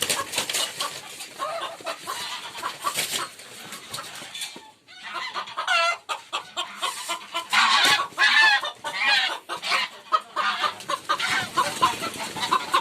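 A flock of chickens clucking and squawking, many birds calling over one another, with a brief lull about five seconds in.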